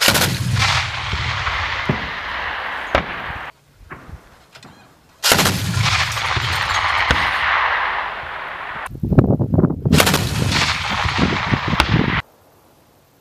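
ZU-23 23 mm anti-aircraft autocannon firing three bursts of rapid fire. Each burst starts and cuts off abruptly, and the last one has the sharpest separate shots.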